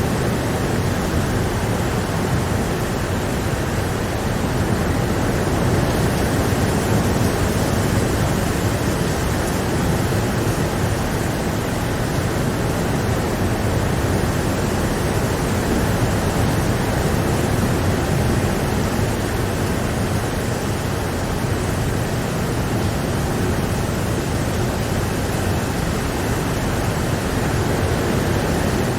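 Steady rain, a dense and even hiss of falling water with no separate drops or thunder standing out.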